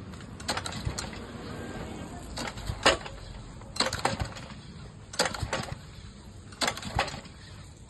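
Pressure washer's small gas engine being pull-started about five times without catching, each pull a short rattling burst. It fails to fire because its control was not set to start, though it was first taken for a flooded engine.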